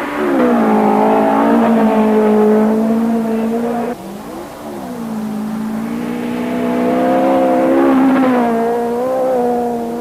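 Rally car engine at high revs under hard driving. The note climbs and holds, breaks off about four seconds in, then climbs and holds again.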